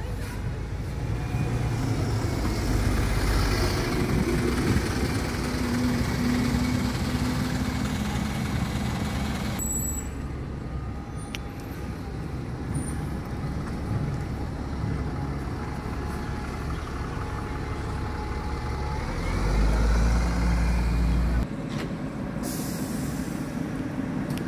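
Stagecoach double-decker bus pulling away and driving close past, its engine running, with air-brake hiss. Other buses then move and idle around the station. A strong low rumble comes for about two seconds near the end.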